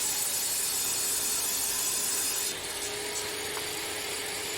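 Table saw cutting through plywood over a steady hum from the spinning blade; about two and a half seconds in the cutting noise drops away and the saw runs on freely.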